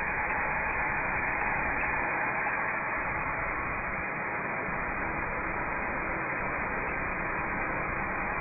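Steady, hiss-like running noise of foundry molding machinery, with a few faint ticks.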